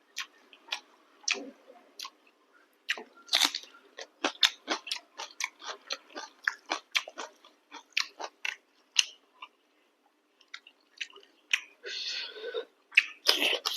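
Close-up chewing and mouth sounds of a person eating chicken curry with chapati: irregular wet clicks and smacks, a few every second. There is a longer wet, noisy sound about twelve seconds in.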